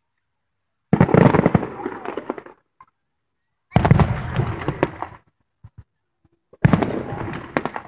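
Three aerial fireworks bursting about three seconds apart, each a sharp bang trailing off into about a second and a half of dense crackling.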